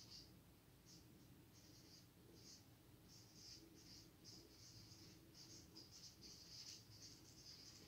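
Marker pen writing on a whiteboard: faint, short scratchy strokes. They come sparsely at first and then in quick succession from about three seconds in.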